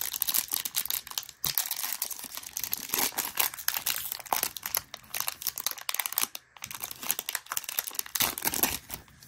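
Foil wrapper of a Panini Prizm football card pack crinkling and tearing as it is ripped open by hand, with brief pauses about a second and a half in and again past the six-second mark.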